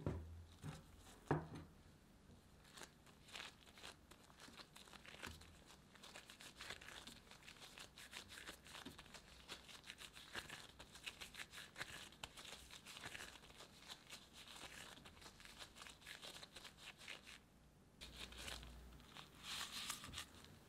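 Soft yeast dough being kneaded by gloved hands: a dense run of sticky pulling and crackling. There are a couple of soft thumps near the start, and more handling with a low thump near the end as the dough is rounded in a glass bowl.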